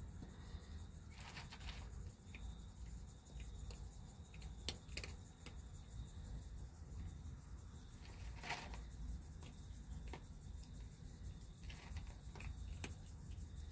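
Faint rustling of a kitten being petted, with a few sharp clicks and a low steady rumble underneath.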